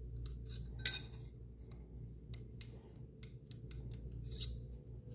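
Hex driver clicking and clinking against small metal screws and the metal chassis plate of an RC car: a scatter of sharp ticks, the loudest about a second in, and a brief rasp about four seconds in.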